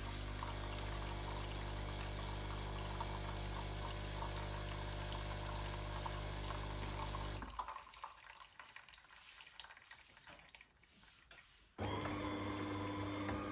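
DeLonghi ESAM 5600 bean-to-cup coffee machine running, a steady pump hum with water flowing. It stops about seven seconds in and starts again with a different hum near the end.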